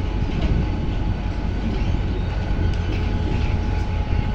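Tren Patagónico passenger train: a steady low rumble with a faint steady hum over it.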